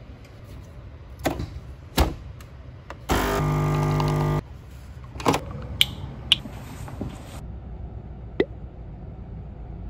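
Capsule coffee machine brewing: a few clicks and knocks, then its pump buzzing steadily for about a second and a half while coffee pours into a paper cup, followed by more sharp clicks.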